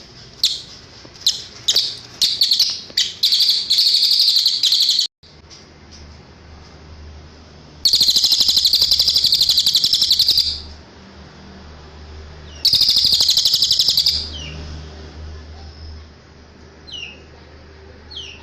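Cililin songbird singing: sharp high chirps that speed up into a rapid trill, cut off abruptly, then two long rapid trills a couple of seconds apart, and a few short falling notes near the end.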